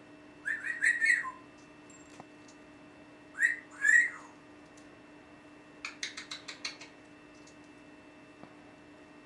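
African grey parrot whistling and chirping: a quick string of whistled notes just after the start, two louder whistles about three and a half to four seconds in, then a fast run of about eight clicks around six seconds in.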